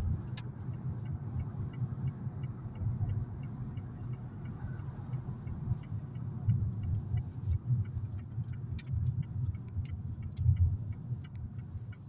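Road noise inside a moving car: a steady low rumble of engine and tyres, with a faint regular ticking about three times a second through the first half.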